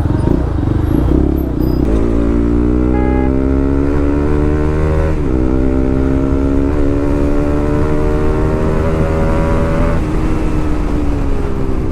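Modified Bajaj Pulsar RS200's single-cylinder engine through an aftermarket Akrapovic full-system exhaust, accelerating. Its pitch climbs, drops at a gear change about five seconds in, climbs again, then eases off near the end.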